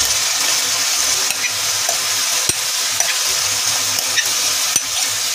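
Tomato masala sizzling steadily in a pan as marinated soya chaap pieces are scraped from a glass bowl into it with a spoon, with two sharp clicks of the spoon against the bowl.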